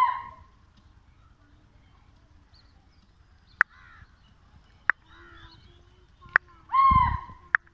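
Two loud, harsh animal calls, one right at the start and one about seven seconds in, with fainter calls and a few sharp clicks between them.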